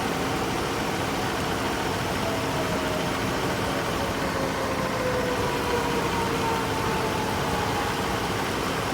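Dodge Ram's 5.7L Hemi V8 idling steadily with the air conditioning running and the compressor clutch engaged. A faint whine slowly falls in pitch through the middle.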